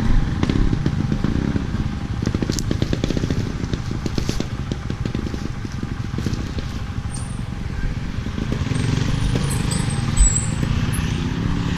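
A vehicle engine running with a dense low pulsing, a little quieter in the middle, with a few crackles and clicks.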